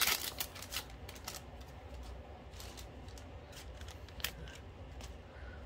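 Rustling and clicking of a trading-card flow pack being opened and its cards handled: a flurry of crinkles and clicks in the first second or so, then a few scattered light clicks.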